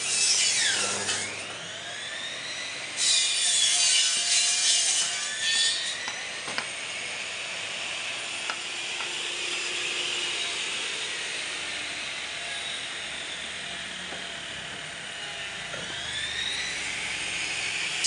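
Electric bone saw running and cutting through meat and bone, a continuous rasping machine sound. Louder cutting stretches come about three to six seconds in.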